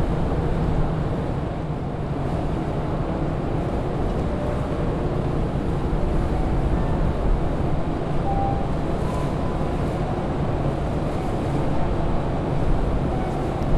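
Steady low rumble of the Ogasawara Maru passenger ferry's machinery running as it lies alongside the pier, with wind buffeting the microphone.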